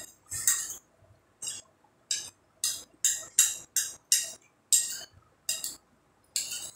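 Forks clinking and scraping against dinner plates in a run of short, sharp strokes, roughly two a second.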